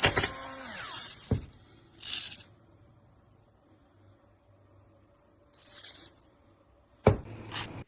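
Battery-powered electric salt and pepper grinder running in short bursts, its small motor whirring with a hissy grinding sound. Two sharp knocks come between the bursts, one early and one near the end.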